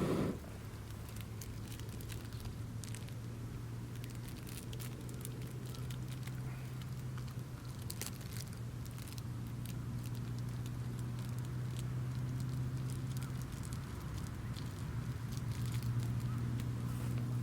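Wood campfire crackling, with scattered small pops over a steady low hum.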